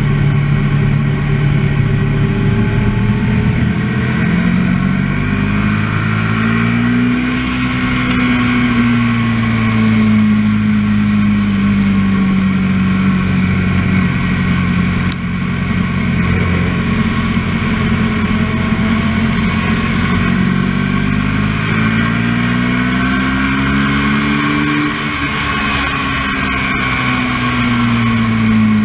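Kawasaki Ninja 650R's 649 cc parallel-twin engine, heard from on board at speed on a race track. The revs climb twice, each time easing down slowly afterwards.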